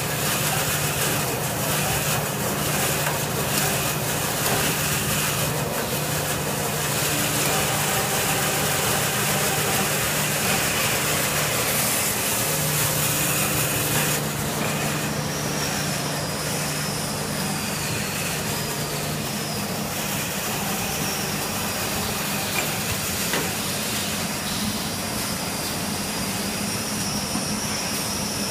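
Full-automatic band saw tissue towel paper cutting machine running: a steady mechanical hum with hiss, and a thin high whine joining about halfway through.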